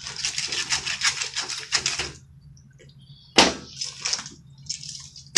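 Knife crunching and scraping through a triggerfish's throat, a fast run of small clicks for about two seconds. A single sharp thump on the cutting board comes about three and a half seconds in, followed by lighter scraping.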